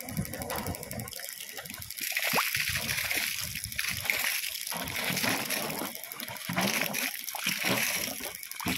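Water from the outlets of a compressor-driven bore-well pump gushing out of two plastic pipes and splashing onto bare soil. The flow picks up about two seconds in and then surges unevenly.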